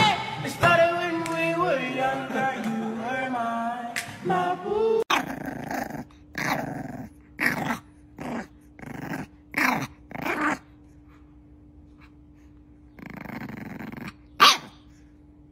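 Background music for the first five seconds, then a bulldog puppy growling in a quick run of short growls, about seven in five seconds. A longer growl follows near the end, then one short loud bark, over a faint steady hum.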